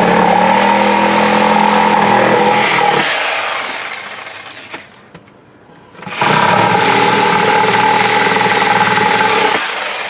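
Electric power saw cutting into a wooden board in two runs. Its motor whine holds steady for about three seconds and winds down, then after a short pause starts again about six seconds in, runs about three more seconds and winds down.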